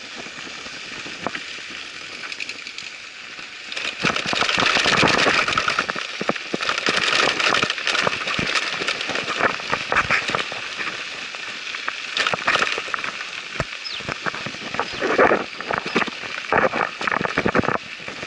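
Dense crackling and rattling from an electric scooter riding over a rough, sandy dirt track: grit and bumps under the tyres and the jolting camera. It grows louder about four seconds in, with bursts of sharper rattles near the end.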